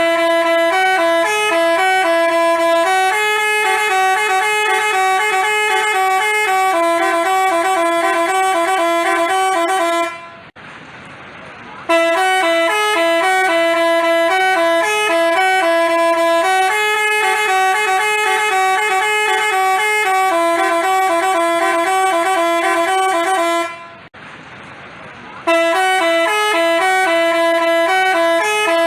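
Telolet basuri multi-tone musical bus horn playing a tune in stepped notes. It breaks off briefly about ten seconds in and again about twenty-four seconds in, then starts up again.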